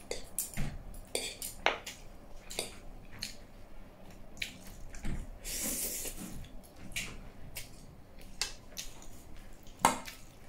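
Close-miked eating of stir-fried noodles: wet chewing and lip-smacking with slurps as strands of chowmein are sucked in. A fork and spoon clink against the plate, with a sharper clink near the end.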